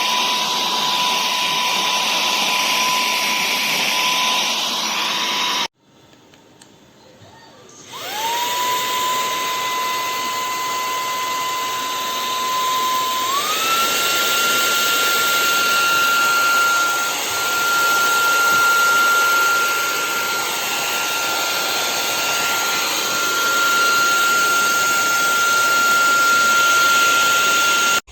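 EBOSSOM cordless handheld vacuum cleaner's motor running with a high whine. It switches off about six seconds in, starts again about two seconds later with a rising whine as it spins up, and about halfway through steps up to a higher, faster whine.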